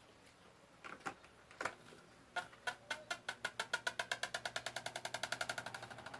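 Electric fan starting up: a few separate clicks, then a ticking that speeds up steadily from a couple of ticks a second to a fast patter as the fan gains speed, over a faint motor hum.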